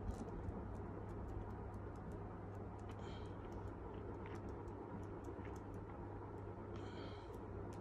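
Paper pages of a thick Lego Technic instruction booklet being riffled through: a run of light ticks, with a short rustle about three seconds in and another near the end, over a steady low hum.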